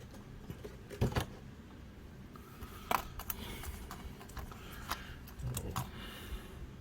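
Plastic toy parts and packaging being handled: a few sharp clicks and taps over light rustling.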